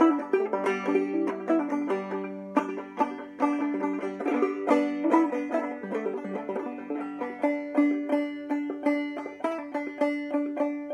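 1909 Tubaphone open-back banjo played clawhammer style: a steady run of plucked notes over a ringing drone string, the melody notes struck with the pinky.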